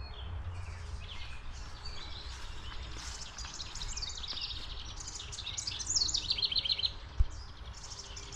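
Wild songbirds chirping, with several fast trills of quickly repeated notes, over a steady low rumble. A single sharp low thump about seven seconds in.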